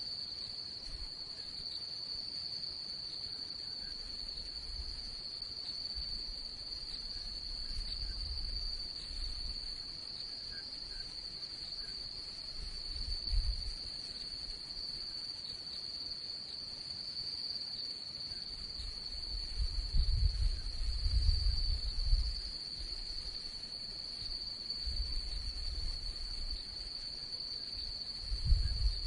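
A steady, high-pitched chorus of night crickets, with irregular low rumbles coming and going, the loudest about two-thirds of the way through and again near the end.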